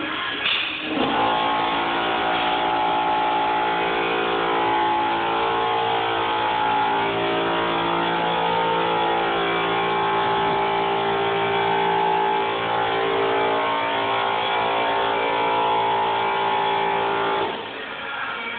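Air compressor motor kicking on about a second in, running steadily with a hum, and shutting off near the end: a cycle refilling its tank, of the kind that feeds a nail gun.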